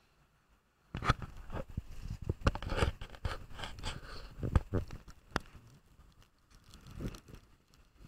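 Stiff rubber rain jacket crinkling and rubbing against the camera as it is handled: a dense run of crackles and rustles that starts about a second in and tails off toward the end.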